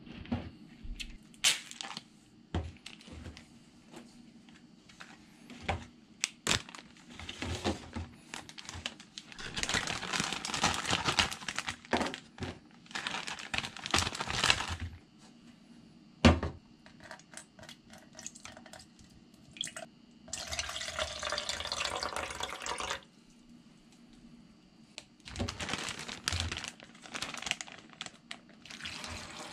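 Plastic egg tray and zip-top bag being handled: sharp clicks and crinkling as boiled quail eggs are tipped from the tray into the bag. In the second half, liquid pours and splashes into the bag for a few seconds.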